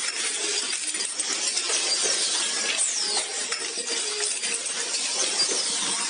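Automatic ball bearing production line running: a dense, continuous metallic clatter and clinking of steel bearings and machine parts. A short falling whine cuts through about three seconds in.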